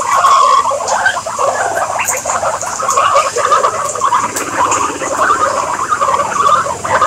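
A large group of guinea pigs squeaking and chattering together without a break, many overlapping short calls, with light clicks mixed in.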